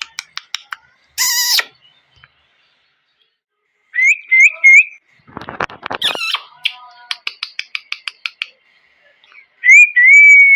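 Indian ringneck parrot calling: a harsh squawk about a second in, then three short rising whistled notes, a burst of rapid clicking chatter, and a loud, long whistled call near the end.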